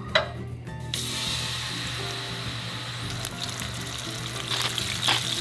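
A haddock fillet laid into a hot oiled pan, starting to sizzle suddenly about a second in and frying steadily, louder near the end. Background music plays underneath.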